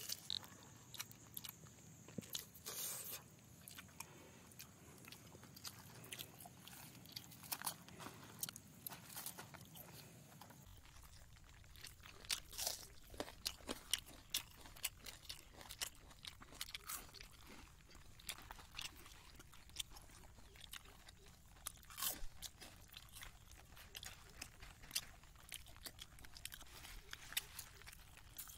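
Close-up eating sounds: chewing and crunching on roasted tandoori chicken, with many short sharp clicks, and fingers tearing the chicken meat.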